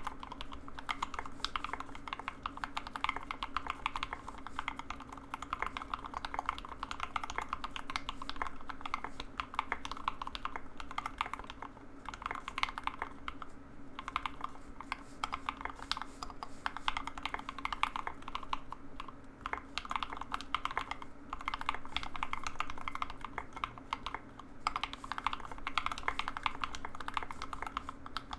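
Continuous fast typing on a mechanical keyboard with Everglide Waterking V3 linear switches, lubed with Krytox 205g0 and filmed, mounted on a carbon fibre plate. Dense rapid keystrokes with brief lulls a few times.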